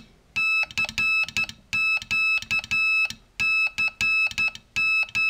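Code practice oscillator beeping Morse code, keyed by hand on a J38-copy straight telegraph key: one steady tone switched on and off in short dots and longer dashes. A low knock from the key lever comes with each press.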